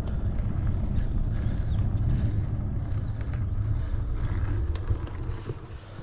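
Low, steady rumble of wind on the microphone and tyre noise while a mountain bike is ridden, dying down about five seconds in.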